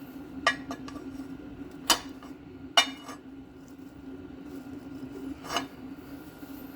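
Metal hand tools clinking as they are handled and set down: four sharp clinks, spaced unevenly, over a steady low hum.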